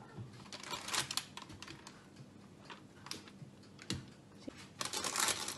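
Spatula scraping and tapping against a glass mixing bowl as cake batter is folded and then scraped out into a lined cake pan: scattered light clicks, thickening into a dense run of scraping near the end.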